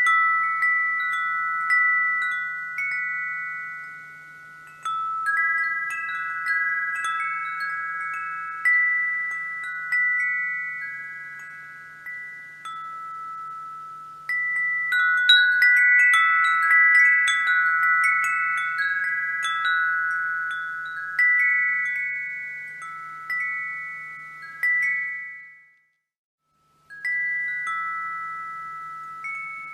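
Wind chimes ringing, several pitched notes struck in irregular clusters, each ringing on and slowly fading. About 26 seconds in they drop to silence for about a second, then start again.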